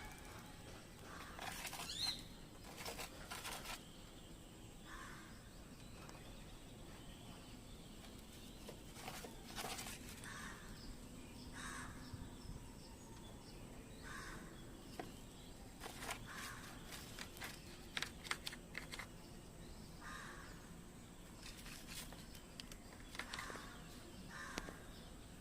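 A parrot making short, scattered squawks and chirps mixed with a few sharp clicks, fairly faint.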